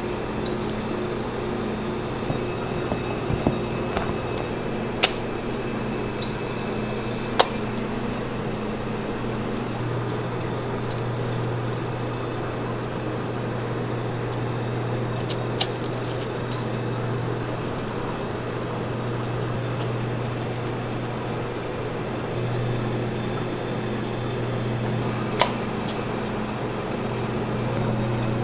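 Steady low hum of kitchen machinery, with a few sharp clicks and taps from the spatula and steel mixing bowl while thick cake batter is scraped and poured into paper-lined cake tins.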